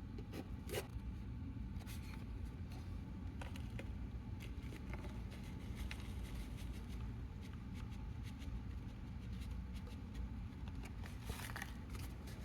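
Scattered light clicks and scrapes of small objects being handled, over a steady low hum.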